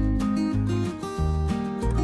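Background music with guitar and a steady low beat.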